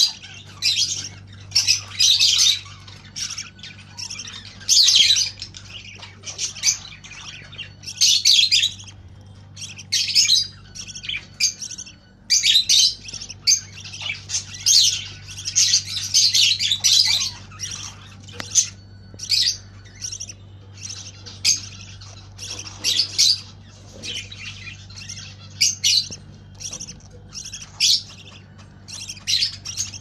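Budgerigar chick making raspy begging squawks in quick repeated bursts as an adult budgie feeds it.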